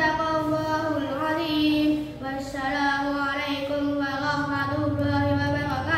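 A boy's voice chanting Quran recitation in a melodic style, holding long drawn-out notes that waver and bend in pitch, with a short break about two seconds in.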